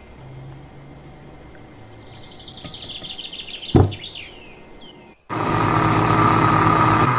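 A plastic lid is pressed onto a glass blender jar with one sharp knock. About five seconds in, the electric blender motor starts and runs loud and steady, mixing the liquid in the jar.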